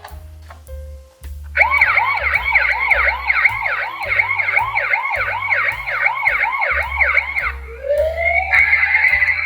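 Emergency-vehicle siren in rapid yelp mode, sweeping up and down about three times a second. It starts about a second and a half in and switches near the end to a slow rising wail, over background music with a steady bass beat.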